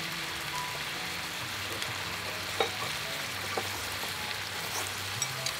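Marinated beef and vegetables sizzling steadily on a hot grill pan over a portable gas stove, with a few light clicks.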